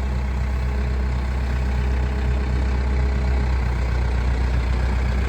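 Case 580 Super M backhoe loader's 95 horsepower turbo diesel engine running steadily.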